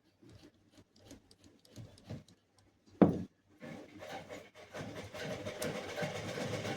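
Clicks and knocks of handling, a loud thud about three seconds in, then a washing machine with a newly fitted motor starting up and running steadily.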